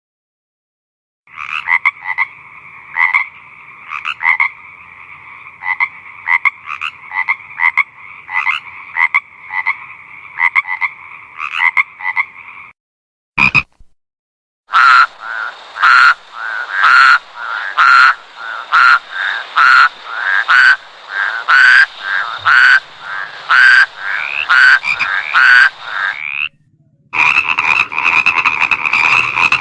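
Frogs croaking in a chorus: a steady massed trill with sharper individual croaks repeating over it. It is several separate recordings joined with abrupt cuts. The middle one has loud croaks about once a second.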